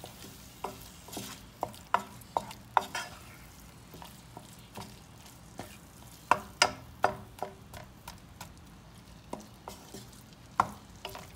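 Wooden spatula scraping and knocking against a nonstick frying pan while stirring minced chicken and onions, in irregular clusters of sharp taps, some with a brief metallic ring. Under it the food sizzles faintly in the hot pan.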